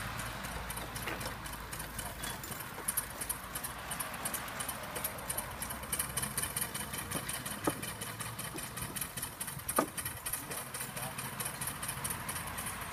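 Miniature live-steam Hornsby chain-track crawler running as it drives along: a fast, even clatter from its engine and tracks, with a few sharper clicks, the loudest about ten seconds in.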